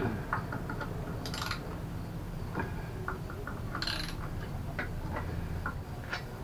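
Hand tools working on a mobility scooter's rear wheel while it is being removed: scattered light metal clicks and clinks, with two short scraping sounds, one about a second and a half in and one about four seconds in, over a steady low hum.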